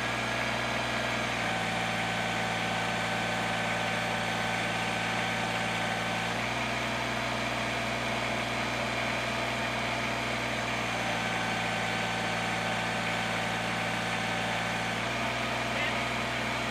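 Kubota compact tractor's diesel engine running steadily. Its tone shifts slightly twice, each time for about four to five seconds, with a faint higher whine added.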